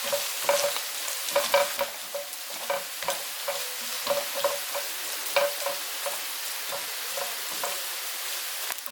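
Tomatoes, garlic and mushrooms sizzling in butter in a pan with a steady hiss, while a spoon stirs them, scraping and clicking against the pan a couple of times a second.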